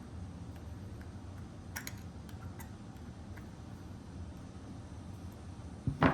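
A Zippo lighter being handled: a few faint small clicks, then a sharp, loud double clack near the end.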